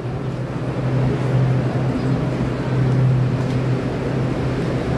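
Train of blue-painted passenger coaches hauled by an electric locomotive, rolling slowly past close by as it pulls out: a steady low hum over a broad rumble, a little louder midway.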